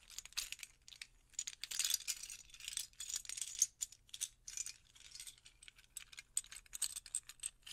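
Small plastic Lego Technic parts clicking and rattling against each other as they are handled, in faint, quick, irregular taps.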